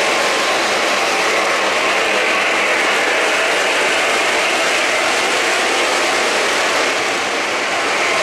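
O-gauge model trains running on three-rail track: a steady running noise of metal wheels on the rails as freight cars and a streamlined passenger train pass close by.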